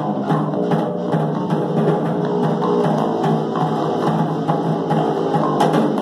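A small live rock band playing: electric bass guitar, electric guitar and drums, with drum strikes keeping a steady beat.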